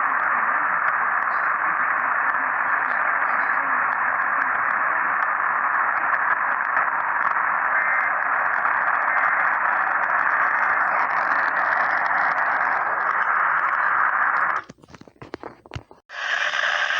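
Radio receiver static: a steady, thin hiss. It cuts out about three-quarters of the way through, leaving a few crackles, then comes back brighter about a second later.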